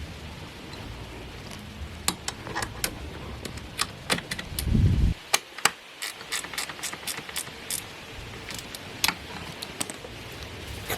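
Metal seat-mechanism parts and hand tools clicking and clinking in quick irregular taps while the seat height-adjuster is being fitted, with one heavier thump a little before halfway.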